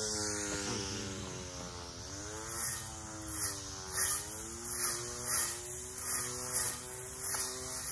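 Battery-powered weed eater with a blade attachment running, its electric motor whining and rising and falling in pitch as its speed changes under load. From about two and a half seconds in, the blade cuts with a regular swish roughly every two-thirds of a second as it is swept back and forth through the grass and weeds.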